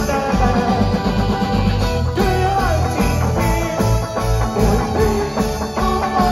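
Live rock band playing loudly, with electric guitars and drums over a steady beat.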